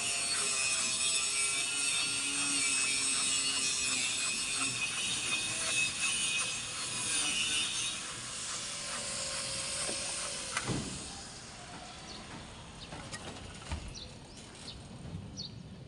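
A power cutting tool running steadily with a high, whining edge, then switched off about two-thirds of the way through, its pitch falling as it winds down. Scattered clicks and knocks of metal and wood work follow.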